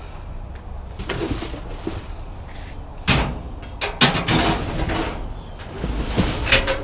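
Knocks and clatter of scrap being pulled and worked loose from a curbside junk pile, with sharp bangs about three and four seconds in and again near the end, over a low steady hum.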